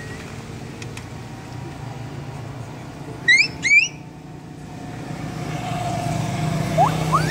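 Road traffic hum, with a vehicle engine growing louder as it approaches in the last couple of seconds. About three seconds in, two short, loud, rising chirps cut through.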